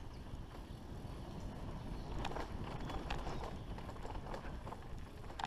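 Mountain bike rolling fast down a dirt forest trail: a steady low rumble of tyres on dirt and wind on the microphone, with scattered clicks and rattles from the bike over roots and stones, a sharper knock near the end.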